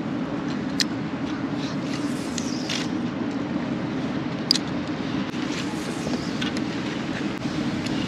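Steady rushing of wind on the microphone, with a faint click about a second in and another about four and a half seconds in.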